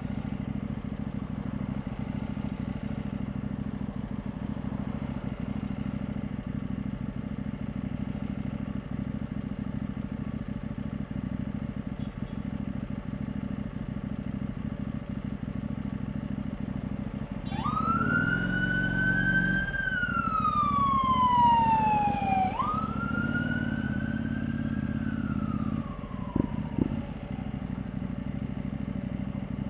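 KTM 790 Duke's parallel-twin engine running steadily on the move. About seventeen seconds in, an emergency vehicle siren wails through two slow cycles, each a quick rise in pitch and then a long fall, and fades out near the end.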